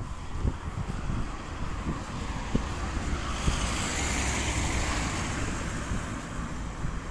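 A car passing on the street, its tyre and engine noise swelling to a peak about four seconds in and then fading. A low wind rumble on the microphone runs underneath.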